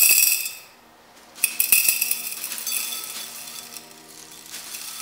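Blue copper sulfate crystals poured into a glass Erlenmeyer flask: a gritty, clinking rattle of crystals hitting the glass. It comes in two pours, with a short pause about a second in, and the second pour tapers off.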